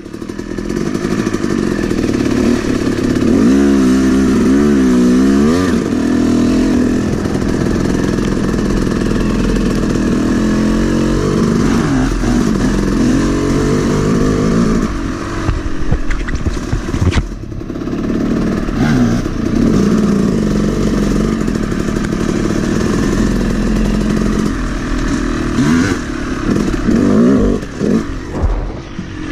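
Freshly rebuilt Yamaha YZ250 250cc two-stroke single-cylinder engine being ridden, its revs rising and falling continually with the throttle, with a brief dip about seventeen seconds in.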